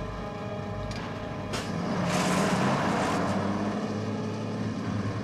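Heavy truck on a film soundtrack: a steady engine drone, with a rush of engine and tyre noise that swells about two seconds in and fades away as the truck passes.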